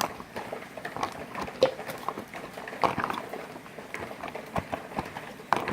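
Spoon stirring freeze-dried turkey tetrazzini just soaked with water inside its ration pouch: an irregular run of wet scrapes and clicks.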